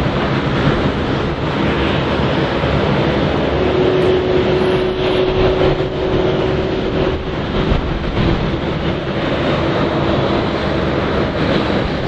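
Airbus A330-323's twin Pratt & Whitney PW4000 turbofan engines at takeoff thrust as the airliner accelerates down the runway: a loud, steady jet noise with a low rumble underneath. A steady tone joins in about three and a half seconds in and holds for a few seconds.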